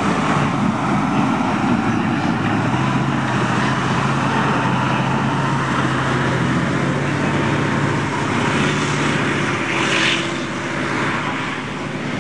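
T-72 main battle tank driving across soft, muddy ground, its V12 diesel engine running steadily under load. A short rush of noise comes about ten seconds in.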